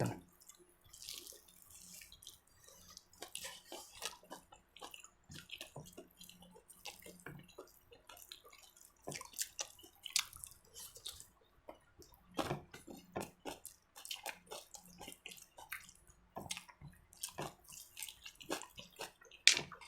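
Quiet sounds of people eating: irregular small clicks and wet smacks from chewing and from food and utensils on plates, with a faint steady hum underneath.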